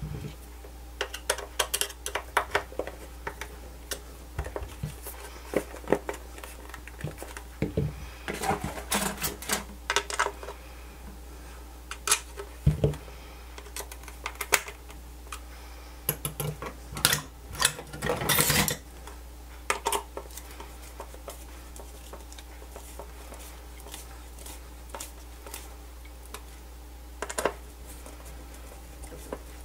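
Irregular small clicks and knocks of a screwdriver working the screws of a Fluke 87V multimeter's hard plastic case as the case is handled, busiest in the first two-thirds, with a longer rattle a little past halfway and a few more clicks near the end.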